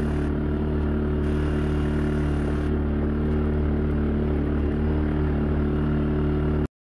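ATV engine running at a steady speed while riding across a field, a constant low drone that cuts off suddenly near the end.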